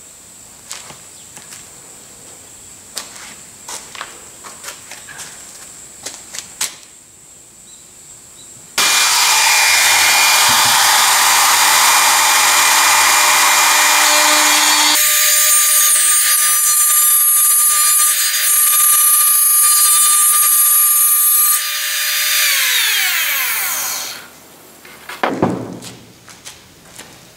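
Makita RT0701C trim router: about nine seconds in it is loud and noisy as the bit cuts a mortise into a wooden board. Then it runs free with a steady high whine, and after it is switched off the whine falls in pitch as the motor winds down. Light clicks and knocks come before and after.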